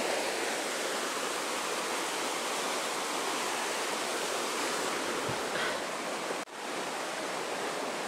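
Fast river water rushing over rocks in white-water rapids, a steady full rushing noise that drops out for an instant about six and a half seconds in.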